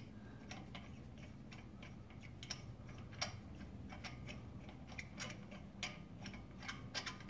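Lug nuts being spun onto the wheel studs by hand: faint, irregular metallic ticking as the threads turn, with a few sharper clicks in the second half.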